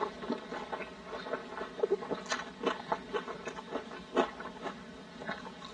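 Sticky glazed meat being squeezed and pulled apart by hands in plastic gloves: irregular soft sticky sounds and glove crinkles, with a sharper click about four seconds in.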